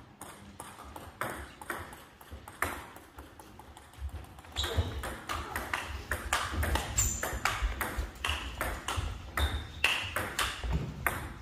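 Table tennis ball clicking: a few single clicks, then from about four seconds in a quick rally, the ball knocking back and forth off the bats and the table.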